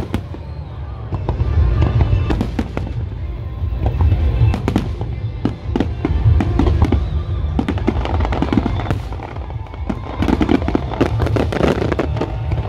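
Aerial firework shells bursting in rapid, overlapping volleys: many sharp bangs and crackles over a continuous low rumble, with music playing underneath.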